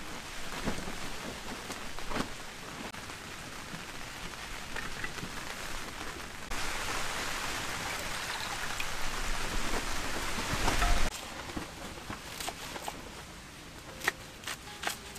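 Heavy rain pattering steadily on the tent. About six and a half seconds in it grows louder for several seconds, then drops off suddenly. Near the end come a few sharp knocks of a knife cutting on a wooden board.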